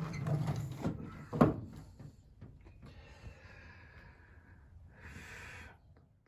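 Tools being handled and put away: rustling and scraping, with one sharp knock about one and a half seconds in and a short scrape near the end.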